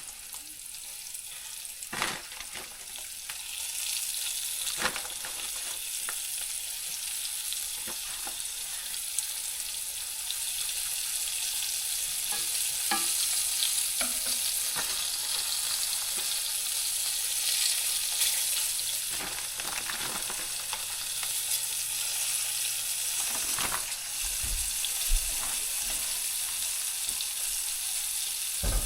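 Food sizzling as it fries in a pan, a steady hiss with a few sharp taps and clicks here and there.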